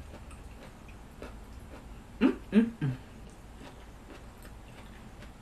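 Eating with a fork from a plastic container: faint chewing and light fork clicks, broken a little past two seconds in by three short hummed voice sounds, falling in pitch.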